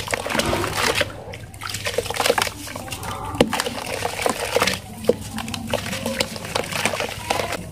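Lumps of pure cement crumbled and crushed by hand over a tub of water: gritty crunching with many small sharp cracks as the lumps break, and crumbs and powder falling into the water.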